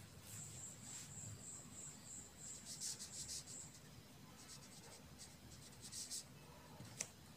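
Pen scratching across paper while writing a word, in two spells of quick strokes, with a sharp tick near the end. Under the first half, a faint high-pitched pulsing repeats about three times a second.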